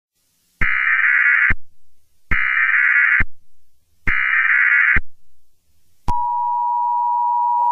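Emergency Alert System SAME header: three bursts of digital data tones, each just under a second long, marking the start of an alert. About six seconds in they are followed by the EAS attention signal, a steady, loud two-tone alarm near 1 kHz.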